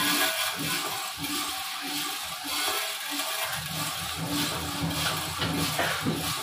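Small drum coffee roaster running mid-roast: its motor and turning drum hum with a low pulsing about twice a second, over a steady airy hiss.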